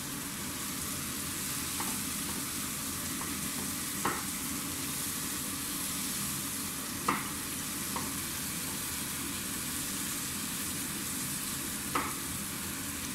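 Diced meatloaf sautéing with onion, garlic and tomato in a nonstick frying pan: a steady sizzle while a wooden spatula stirs it, knocking sharply against the pan a few times.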